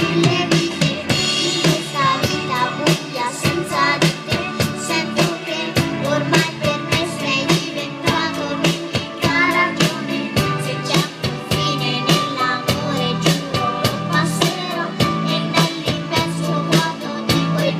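Music: a song with a singing voice over a steady, regular drum beat.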